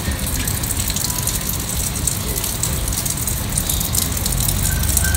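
Steady rainfall: a dense, even hiss of raindrops, with a low rumble underneath.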